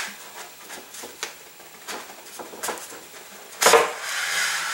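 Cardboard rocket body tube sliding over the motor mount's centering rings: a dry rub, with a few light knocks, then a louder scraping slide about three and a half seconds in lasting about a second.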